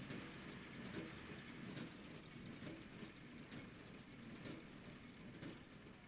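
Distant tractor and small square baler running, a low rumble with faint regular knocks about once a second.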